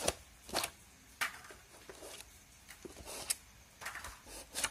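Thin plastic centring shims being pulled out of the voice coil gap of an RCF LF15X400 woofer: several short scrapes and light clicks of the plastic sliding against the coil former.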